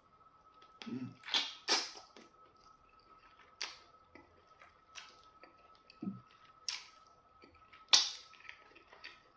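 Close-miked eating sounds: irregular wet mouth smacks and clicks from chewing chicken and fufu with okra soup eaten by hand, the sharpest smack near the end.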